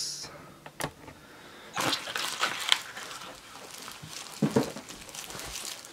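Clear plastic bag crinkling and rustling as it is handled, in a few irregular spells, with a sharp click a little under a second in.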